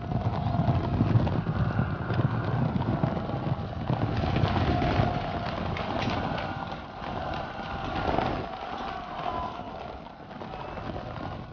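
A troop of horses galloping in a charge: a dense, continuous rumble of many hooves that slowly fades over the last few seconds.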